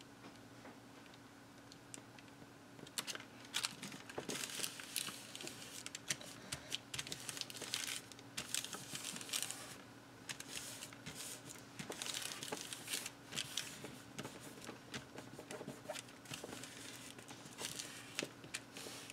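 Paper rustling and crinkling as hands press and rub a freshly glued patterned-paper panel with a tracing-paper window down onto a journal page. Quiet for about the first three seconds, then irregular crackly rustles.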